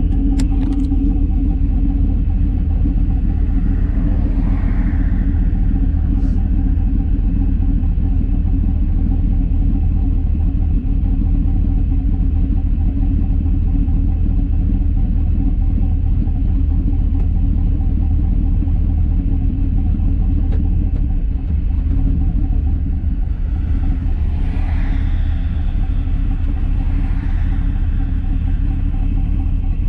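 Turbocharged Sierra pickup's engine and exhaust running with a steady low rumble while cruising gently.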